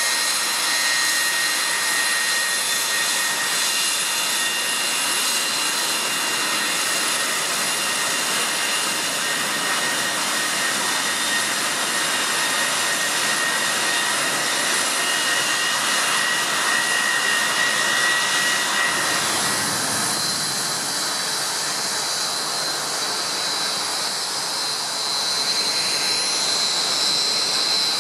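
NATO E-3A Sentry AWACS with its four turbofan engines running at taxi power: a steady jet rush with a high whine. About two-thirds of the way through, the sound changes to another jet's higher-pitched whine.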